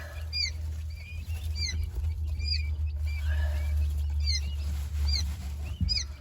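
Newly hatched quail chicks peeping, short high chirps repeating about one or two a second, over a steady low hum.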